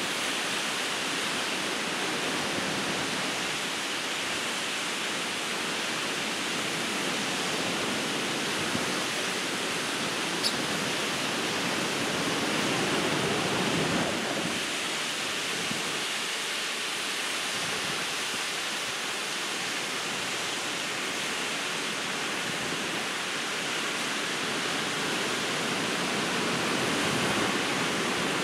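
Ocean surf breaking on a beach: a steady wash of waves that swells a little about halfway through and again near the end, with one short click around ten seconds in.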